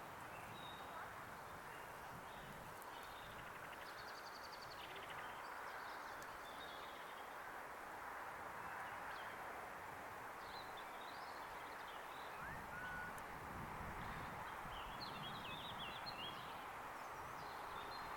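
Birds chirping and trilling here and there over a steady, faint outdoor hiss; a low rumble joins about twelve seconds in.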